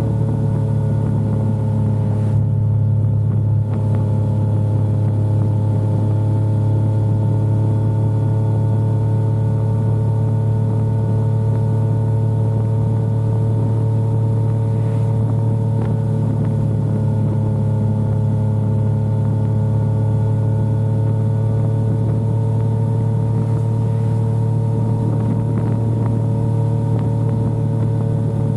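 Yamaha XSR900 motorcycle's inline-three engine running under way at a nearly constant pitch, a steady cruise with no marked revving or gear changes.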